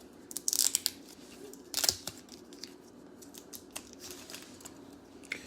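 The foil wrapper of a Mosaic football card pack being opened, tearing and crinkling in two short bursts, about half a second in and about two seconds in, with small handling clicks between.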